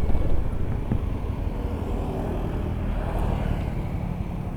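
Motorcycle riding along: a steady low engine and road rumble with no sudden events.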